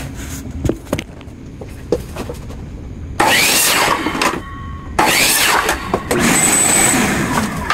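DeWalt miter saw cutting white trim: the blade spins up and cuts twice, a short cut about three seconds in and a longer one about five seconds in, each starting abruptly with a whine that rises and falls. Light knocks from handling the trim come before the first cut.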